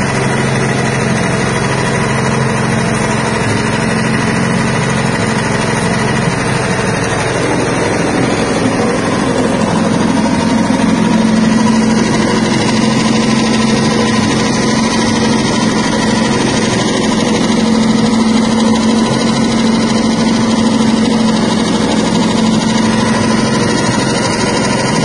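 Stainless soybean skin-peeling machine running steadily, its motor giving a constant hum; the low hum grows a little stronger about eleven seconds in.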